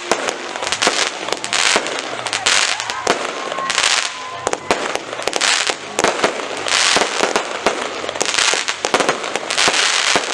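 Fireworks going off: a steady run of sharp bangs mixed with repeated bursts of crackling hiss, about one burst a second.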